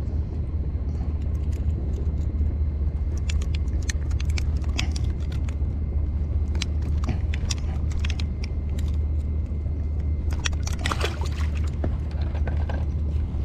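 Steady low wind rumble on the microphone, with scattered light clicks and rattles and a brief cluster of clatter about eleven seconds in.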